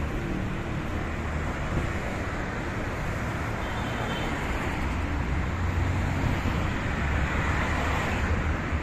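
Steady city street traffic: a continuous rumble of cars and tyres on the road, getting a little louder in the second half.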